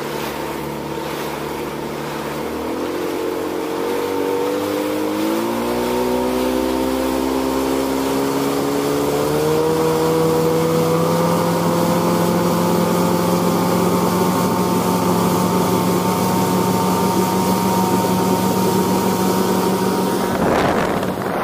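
A 40 hp Evinrude outboard motor driving a boat along at speed. It rises in pitch in steps over the first several seconds as it is throttled up, then holds a steady note. Wind on the microphone and water rushing past run through it, with a brief rush of noise near the end.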